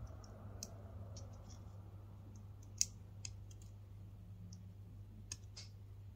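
Small scissors snipping thin clear plastic: a dozen or so faint, sharp clicks at irregular intervals, the sharpest about three seconds in, over a low steady hum.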